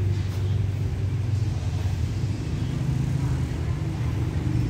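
Steady low engine rumble.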